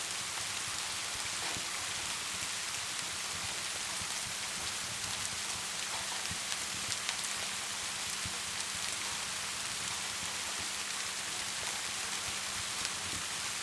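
Steady rain falling, mixed with a crackling fire: an even hiss dotted with many small ticks and crackles.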